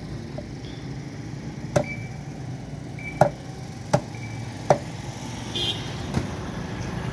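Machete chopping roasted beef on a cutting board: four sharp chops about a second apart, then a fainter one, over a steady low background hum.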